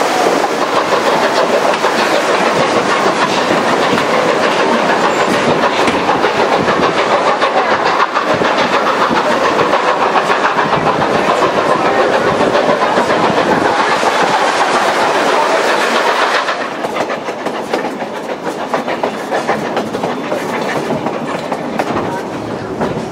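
Rolling noise of a narrow-gauge passenger train riding the rails, wheels clattering over the track. About two-thirds of the way through, the loud rolling noise drops away sharply, leaving a quieter run of clicks from the wheels.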